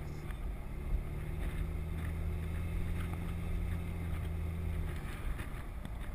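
Tour Jeep's engine running with a steady low drone as it drives, over road and wind noise; the engine note drops away about five seconds in.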